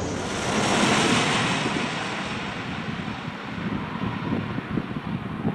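Airbus A319-112's CFM56 turbofan engines running on landing approach, a broad jet whine and rush that is loudest about a second in and then fades. Wind buffets the microphone toward the end.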